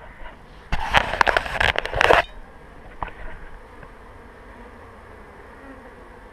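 Africanized honeybees buzzing around their nest on the wall. A loud burst of rustling and knocking from about one to two seconds in.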